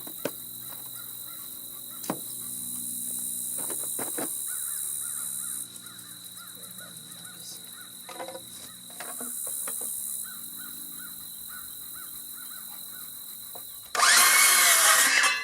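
Crows cawing over a steady background of insects, with a few sharp knocks early on. About fourteen seconds in, a power saw runs loudly for just over a second, cutting a wooden board to length.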